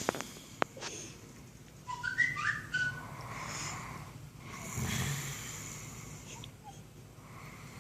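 A sleeper's slow breathing and snoring, with a short high nasal whistle about two seconds in that jumps between a few pitches, and a breathy snore near five seconds.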